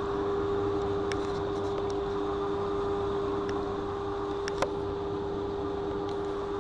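Steady train hum and rumble with a constant whine over it, and a few sharp clicks, the loudest about four and a half seconds in.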